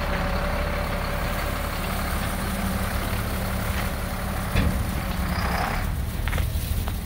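Diesel engine of a 1999 Kenworth single-axle grain truck idling steadily, with a single knock and a brief hiss about five seconds in.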